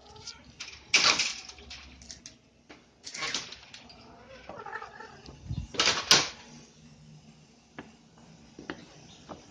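Domestic cat meowing amid the rattle and clank of a wire-mesh metal gate being opened. The loudest bangs come about a second in and a little past the middle.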